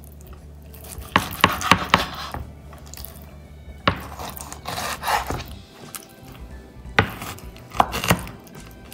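Kitchen knife cutting raw beef lung into large chunks on a cutting board: sharp knocks of the blade on the board, a quick run of four about a second in, then single knocks and a couple close together near the end.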